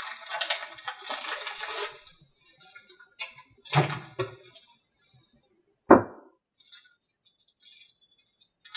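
Paper and cardboard packaging rustling as parts are taken out of a box, followed by a few knocks of small items set down on a table, the sharpest about six seconds in.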